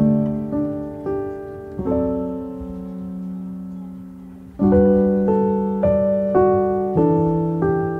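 Background piano music: slow chords struck and left to ring, with a louder run of notes starting about four and a half seconds in.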